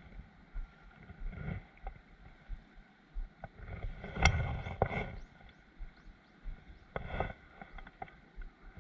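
Water sloshing against the seawall in irregular surges, with a few sharp clicks. The loudest surge comes about four seconds in.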